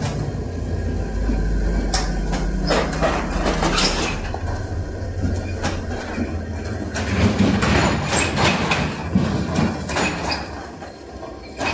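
Metal rolling shutter being rolled, its slats rattling and rumbling with a steady low drone and irregular clattering clicks.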